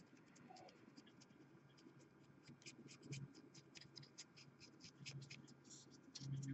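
Faint, quick scratching of stiff paintbrush bristles flicked back and forth over a miniature's raised edges, a rapid run of small ticks: drybrushing with a nearly dry brush.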